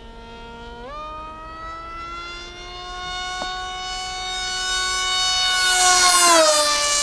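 Electric motor of a foamboard RC delta plane whining in flight. Its pitch jumps up about a second in, and it grows steadily louder as the plane closes in. Near the end it falls in pitch as the plane passes by.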